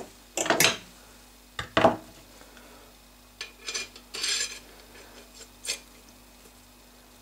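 Steel rotisserie spit and its pronged forks clinking and scraping as they are worked into a trussed raw chicken: two sharp clatters in the first two seconds, then lighter clinks, a longer scrape about four seconds in, and a last clink near the end.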